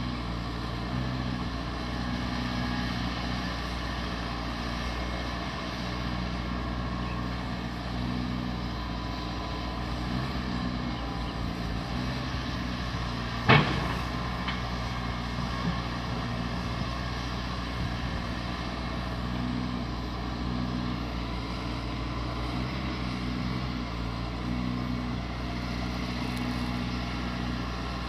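Caterpillar 320D hydraulic excavator's six-cylinder diesel engine running steadily, its note swelling and easing in spells as the hydraulics take load while it works. One sharp knock about halfway through, the loudest sound, with a fainter one a couple of seconds later.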